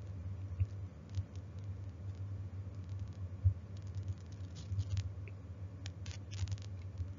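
Small handling noises at a desk: scattered light clicks and rustles over a low steady hum, with a sharper knock about halfway through.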